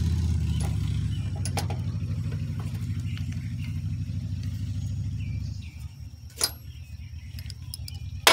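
A steady low engine drone runs underneath, dropping in level about two-thirds of the way through. Over it come a few light metal clicks of hand tools at a battery terminal bolt, and near the end one sharp ringing metal clink, like a wrench set down on the metal deck.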